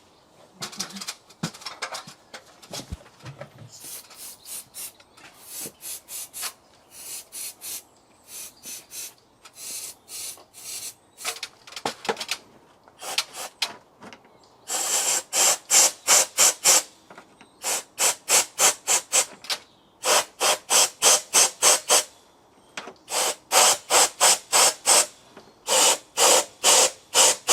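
Rapid short hissing bursts, several a second and in groups, from brake cleaner sprayed into the injector harness plugs and an airline blowing them out. The bursts get much louder about halfway through.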